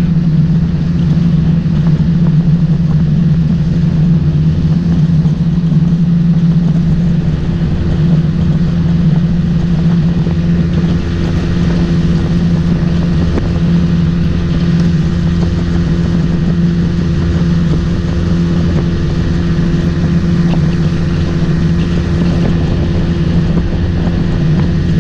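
Boat motor running at a steady speed, a constant drone that holds one pitch.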